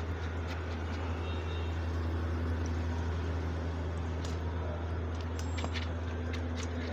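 A steady low hum with a constant background hiss and a few light clicks.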